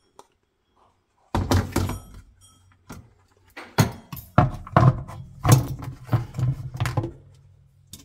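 Hard plastic dishwasher filter screen and sump parts knocking and clunking as they are handled and seated back into the tub. A string of separate thunks begins about a second and a half in, after a near-silent start.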